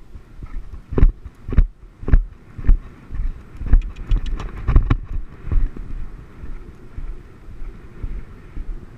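Horse moving at speed across turf, a heavy thud with each stride about twice a second, with wind buffeting a helmet-mounted microphone. The stride thuds are strongest in the first half and give way to a steadier wind rumble after about six seconds.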